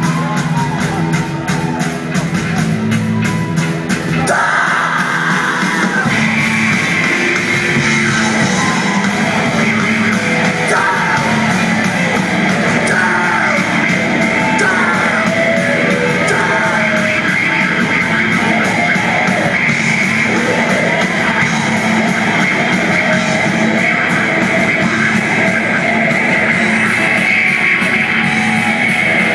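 Live rock band playing a loud instrumental break of distorted electric guitar over bass and drums, thickening into a denser, brighter wall of noise about five seconds in.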